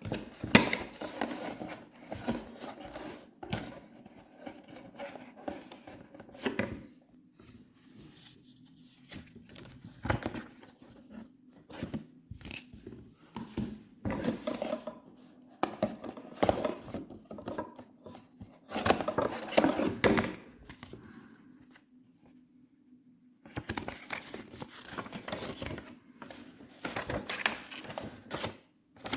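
Packaging being handled during unboxing: irregular rubbing, scraping and crinkling with scattered light knocks, and a short pause about three-quarters of the way through.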